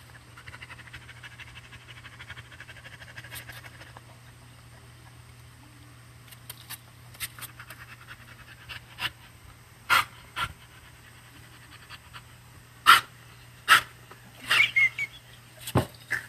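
Kitten eating from a dish with a fast, soft lapping tick for the first few seconds. From about ten seconds in come several sharp, short sneezes a second or so apart.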